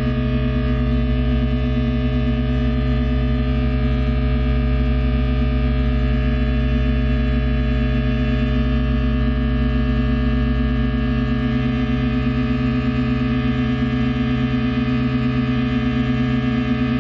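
Experimental drone music from electric guitar and balloons: a dense, steady stack of held tones with a fast throbbing beat in the low end.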